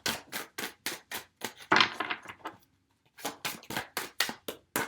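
A deck of oracle cards being shuffled by hand: a run of quick, irregular card slaps and flicks, with a short denser rustle about two seconds in.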